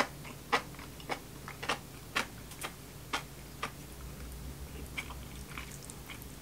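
Close-up mouth sounds of chewing crunchy enoki mushrooms: crisp crunches about twice a second, fading to faint ticks after three or four seconds.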